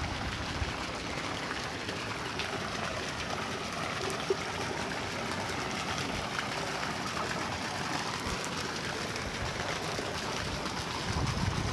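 Steady hiss of running water flowing into a fish pond. A low rumble on the microphone rises near the end.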